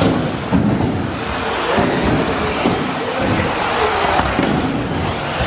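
Several 1/10-scale electric RC buggies racing together on an indoor track, their motors whining as the pitch rises and falls with the throttle, with a few short knocks. The sound carries the echo of a sports hall.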